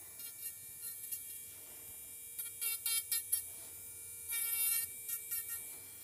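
High-speed electric podiatry drill, running at about 30,000 RPM with a small burr, whining steadily. Several brief, louder bursts come as the burr is tapped lightly against the toenail tip and skin.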